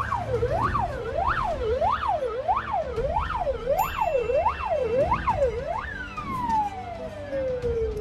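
A siren sweeping quickly up and down in pitch, about three rises every two seconds, then winding down in one long falling glide about six seconds in.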